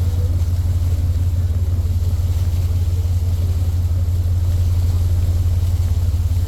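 Tour boat's engines running with a steady low drone.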